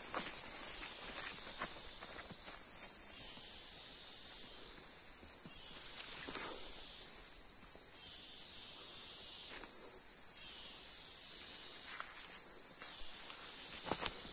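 A chorus of insects buzzing at a high pitch, swelling in phrases of about a second and a half that come back about every two and a half seconds, with a few footsteps on the forest path.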